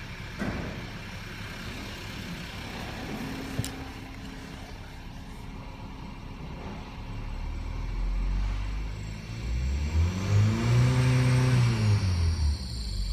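Skoda Rapid's 1.4 TSI (CZCA) four-cylinder turbocharged petrol engine, heard from inside the cabin. It idles, then is revved to about 3000 rpm and drops back toward idle near the end.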